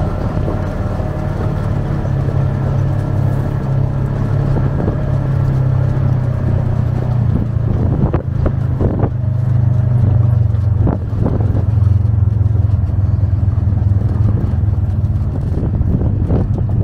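Off-road vehicle's engine running steadily at low speed on a rough dirt track, with a few sharp knocks about eight to eleven seconds in.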